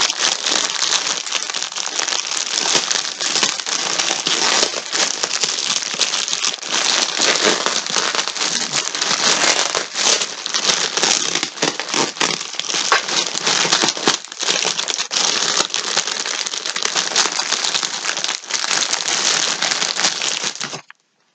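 Plastic packaging crinkling and rustling continuously as it is handled, with many small crackles, stopping abruptly near the end.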